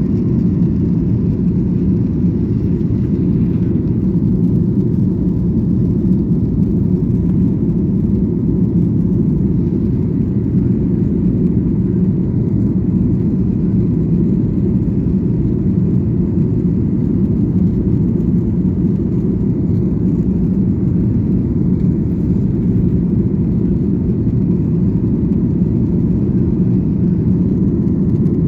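Airliner's jet engines and rushing air during takeoff and climb, a steady low drone that does not change.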